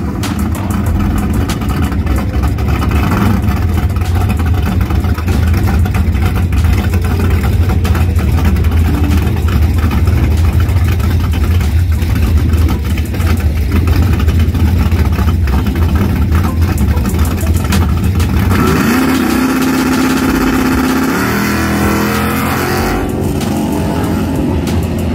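Drag-racing car's engine running loud and rough at the starting line. About three-quarters of the way in it revs up as the car launches down the strip, its pitch climbing.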